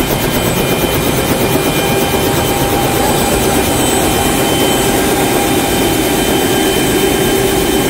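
A helicopter parked with its engine and rotor left running: a loud, steady machine noise with a constant whine.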